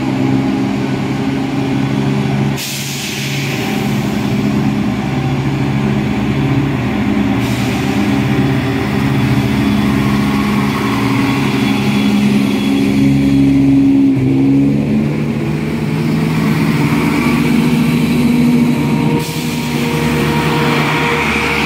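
Chiltern Railways Class 168 'Clubman' diesel multiple unit pulling away, its underfloor MTU six-cylinder diesel engines running under power with a droning note that shifts in pitch as the train gathers speed. A hiss of air starts about three seconds in and lasts several seconds, and comes back near the end.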